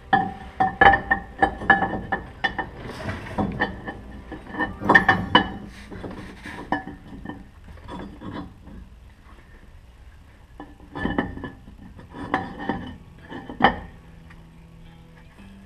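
Stamped-steel rear differential cover clinking and knocking against the axle housing as it is worked onto its alignment pins, the taps ringing briefly like metal. A dense run of clinks fills the first half, then three more sharp knocks come in the second half.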